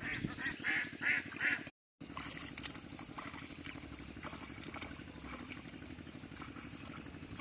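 Domestic geese honking in a quick series of short calls for the first second and a half. The sound then cuts out for a moment and gives way to a quieter steady low background with faint scattered clicks.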